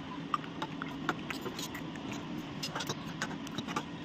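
Steel ladle clinking against a steel pot and steel tumblers while thickened milk is scooped and poured, a scattered series of small sharp metal clicks over a steady low hum.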